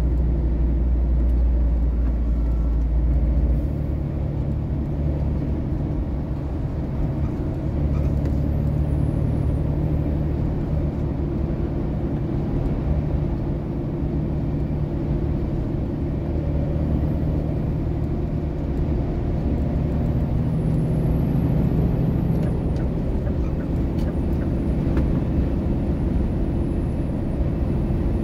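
Engine and road noise inside a heavy vehicle's cab at highway speed: a steady low drone with a rushing tyre-and-wind noise over it, the deepest part of the drone easing off about three and a half seconds in.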